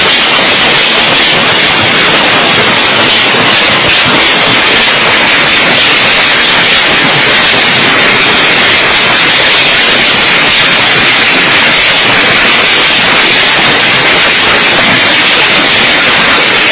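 A violent storm's wind and rain, a steady, loud rushing hiss that does not let up.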